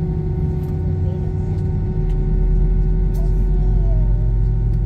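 Steady drone inside a Boeing airliner's cabin before takeoff: a low rumble under a constant hum, the rumble growing louder about two seconds in. Faint voices in the background.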